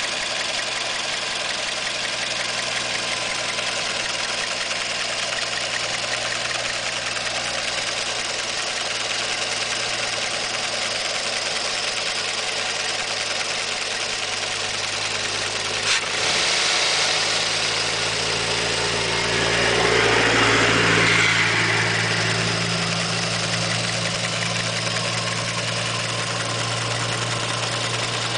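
Toyota 2NZ-FE 1.3 L VVT-i four-cylinder petrol engine idling warm, a steady hum heard close up in the engine bay. About halfway through there is a sharp click, after which it runs fuller and a little louder for a few seconds. The owner's worrying noise from this engine was judged normal by a Toyota mechanic.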